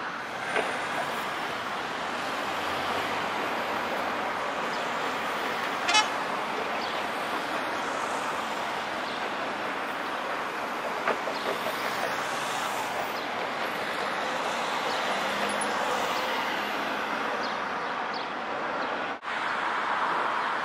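Steady urban street noise with trams running along their track, a short sharp sound about six seconds in, and a momentary break in the sound near the end.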